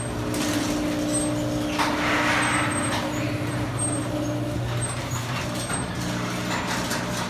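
LiftMaster chain-drive garage door opener running, its motor humming steadily as the chain drive pulls the garage door closed.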